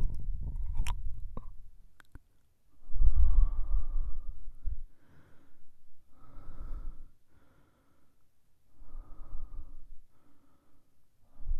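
A man's breathy sighs and exhalations close to a binaural microphone, in a series of swells with short pauses between them, the loudest about three seconds in. In the first second and a half there are wet mouth clicks and smacks from ear-licking.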